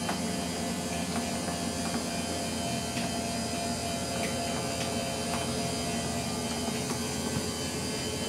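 Electric slide-out motor of a fifth-wheel RV running steadily as the slide room retracts: a constant mechanical hum with a few faint clicks.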